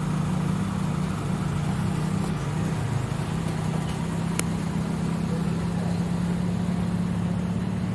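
Minivan engine idling with a steady low hum, and one short click about four and a half seconds in.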